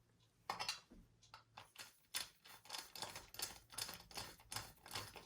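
Irregular light clicks and short scrapes of a hand tool and small metal parts, about two or three a second, as a fastener on the RC truck's exhaust pipe mount is tightened.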